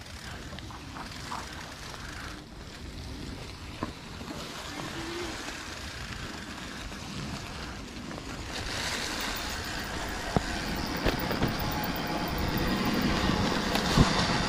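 Mountain bike descending a steep dirt singletrack: tyre and trail noise with wind on the microphone, growing louder about halfway, with a few sharp knocks near the end.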